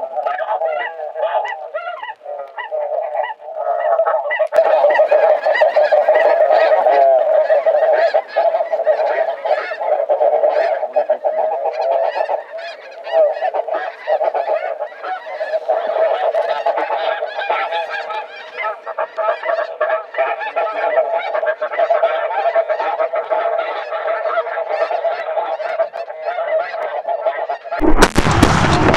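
A large flock of snow geese calling, a dense continuous chorus of overlapping high honks. Near the end, loud shotgun fire breaks out.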